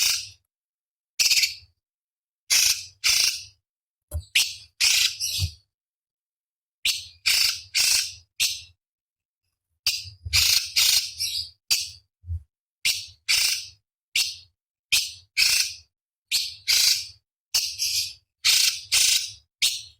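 A cucak cungkok (leafbird) giving short, harsh, high calls in quick runs, one to two a second, separated by brief silent gaps and two slightly longer pauses.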